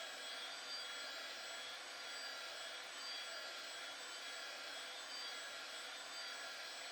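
Heat gun blowing steadily, a constant airy rush, warming the holster material to soften it for bending.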